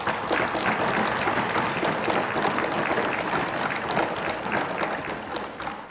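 A large group applauding with many hands clapping, a dense and steady patter that begins at once and fades near the end.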